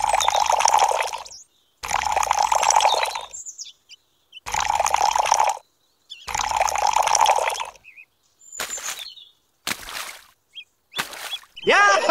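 Water poured from a small cup into a miniature brick tank, splashing onto the water already in it, in about seven separate pours that each start and stop abruptly with silence between; the first four last about a second and a half each, the last three are shorter.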